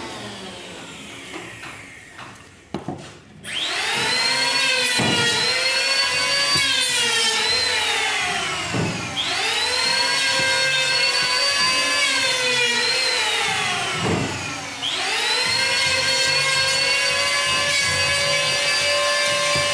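Electric angle grinder motor spinning up about three and a half seconds in and running with a steady high whine. Its speed sags briefly twice, near the middle and again later, then picks back up.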